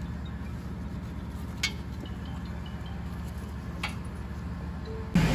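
Steady low background hum with two light clicks, the first about a second and a half in and a fainter one near four seconds. A louder hum cuts in abruptly at the very end.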